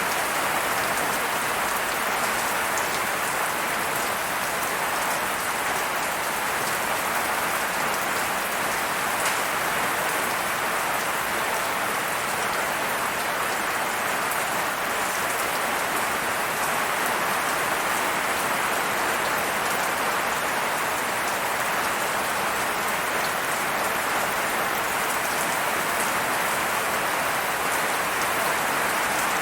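Steady rain falling, an even hiss of drops hitting a surface with scattered individual drop ticks, unchanging throughout.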